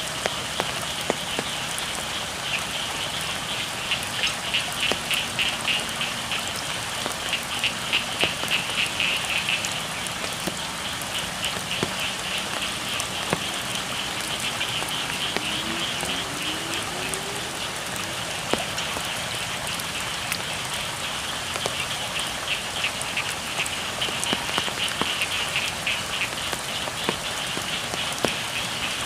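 Steady rain falling on a rice field, with scattered sharp drip ticks, while frogs call in rapid pulsed trills that come and go in stretches of several seconds.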